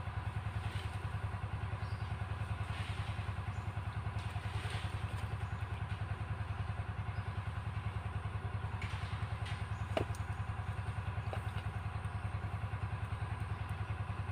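A small engine running steadily at an even idle, a low throb with a fast regular pulse. There are two light knocks about ten seconds in.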